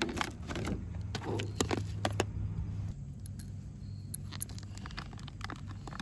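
Plastic wrapping crinkling as the filler panels are handled, then small metal brackets and screws clicking against each other in the fingers.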